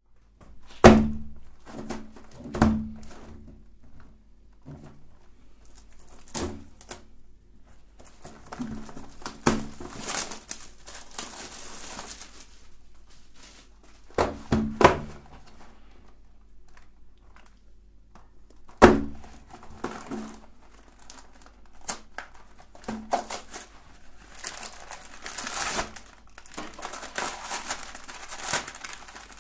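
Cardboard Oreo cookie boxes knocked down and handled on a table with a series of sharp knocks. One box's cardboard is torn open, and the foil-wrapped cookie packs inside rustle and crinkle, most of all near the end.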